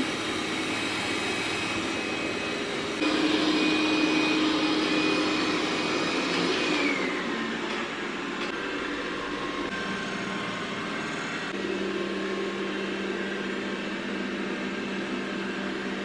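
Xiaomi X10+ robot vacuum-mop running: a steady whir of its suction motor and brushes. It gets louder about three seconds in, drops with a falling whine around seven seconds, and a low steady hum joins later on.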